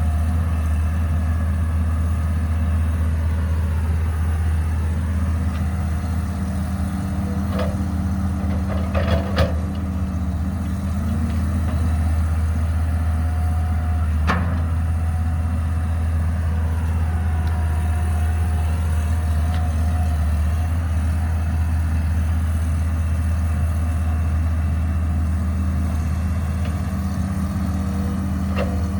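Caterpillar 312B hydraulic excavator's diesel engine running steadily, with a few sharp knocks in the middle.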